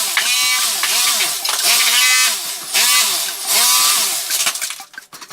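Electric power tool running, its motor pitch rising and falling over and over, about once every three-quarters of a second, until it stops near the end.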